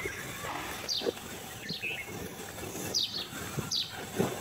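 Cattle munching and rustling dry chopped straw fodder, with irregular crunchy sounds. Small birds chirp over it, short falling chirps once or twice a second.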